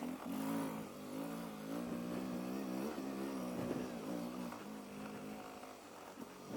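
Motorcycle engine running on a trail, its revs rising and falling several times as the throttle is worked.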